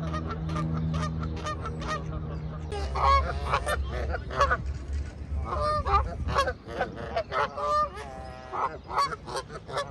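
A flock of birds calling: many short, loud calls follow one another quickly and overlap, thickest from about three seconds in. A steady low hum runs underneath and stops about six and a half seconds in.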